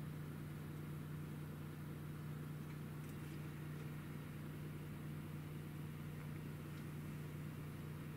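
Steady low hum with an even hiss over it, like a fan or appliance running. It does not change, and only a couple of faint ticks stand out.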